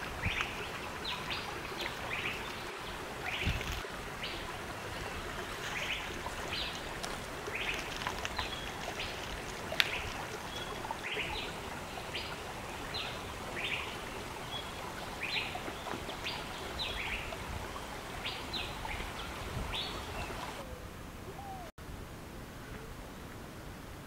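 Bird repeating short high chirps about one or two a second over a steady hiss of outdoor background noise; the chirps stop a few seconds before the end.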